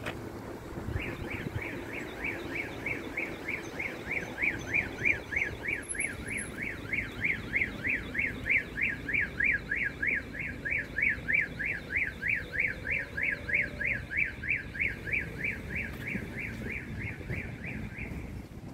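Car alarm's electronic siren sweeping rapidly up and down, about three cycles a second. It starts about a second in and stops shortly before the end.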